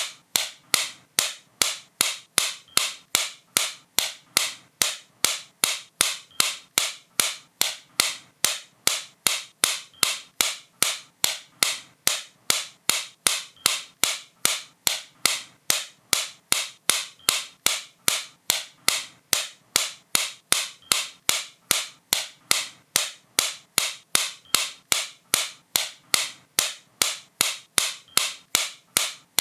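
Sharp, bright clicks repeating at an even pace, about three a second.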